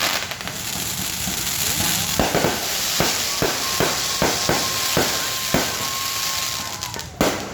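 Fireworks going off: a dense, continuous crackling pierced by a quick run of sharp bangs, with a thin steady whistle held for a few seconds in the middle and a louder bang near the end.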